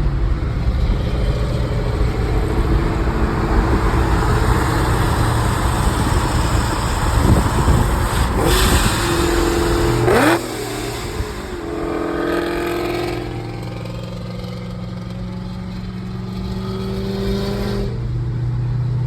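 Car engine running with a steady drone, revved sharply about ten seconds in, then running more quietly afterwards.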